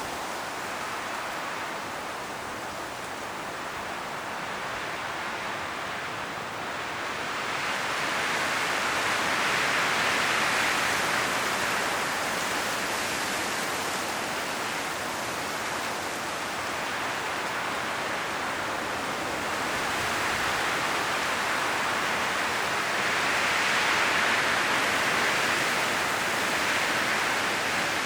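Strong wind blowing through forest trees, rustling the autumn leaves in a steady rush, with gusts that swell about a third of the way in and again near the end.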